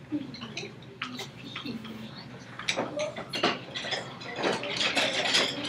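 Wooden rhythm sticks clicking and tapping as a group of children handle them and knock them together, in scattered irregular clicks that grow busier near the end.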